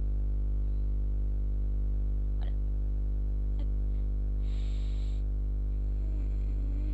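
A steady low electrical hum with a buzzing series of overtones, picked up by the recording microphone, with two faint clicks and a short hiss about midway.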